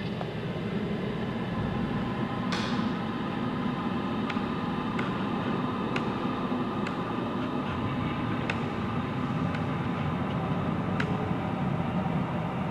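A steady low hum with several faint held tones, and a faint click about once a second.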